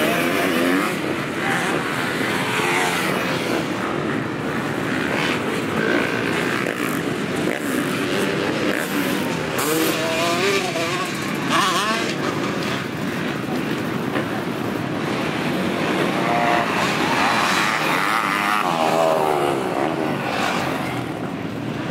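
Motocross bike engines revving up and down through the gears as the bikes ride round a dirt track, the pitch rising and falling again and again; a Honda CR125 two-stroke is among them. The revving is strongest about halfway through and again a few seconds before the end.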